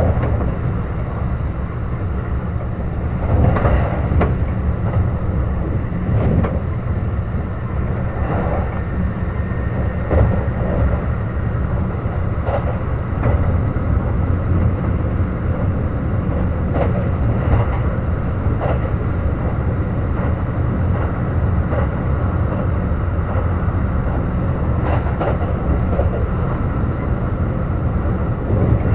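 Kintetsu Urban Liner Plus (21000 series) limited express train running along the line: a steady rumble of wheels on rail, with irregular clacks as the wheels pass over rail joints.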